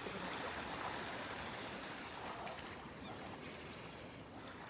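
Steady hiss of gentle surf washing along the shore.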